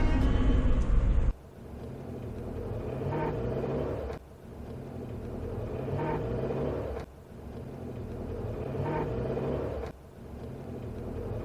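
Suzuki Jimny Sierra JB74 pulling away in first gear, played four times over, each pass about three seconds long with the engine pitch rising, and a brief higher-pitched noise about two seconds into each pass. This is the occasional pull-away noise that the owner traces to the transfer chain. Background music runs into the first second before cutting off.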